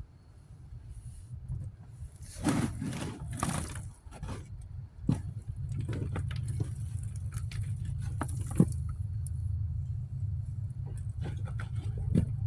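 Hands scraping and rustling in garden soil and sweet potato vines close to the microphone, loudest about two to four seconds in, with scattered small knocks and a low steady rumble underneath.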